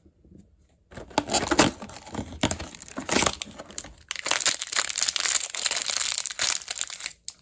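Purple plastic blind bag crinkling loudly as it is handled and torn open, starting about a second in with a short lull midway.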